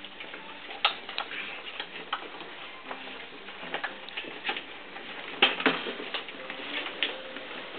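Puppies scuffling and playing with toys on hard flooring: irregular small clicks and taps, with a louder knock about a second in and a louder cluster about five and a half seconds in.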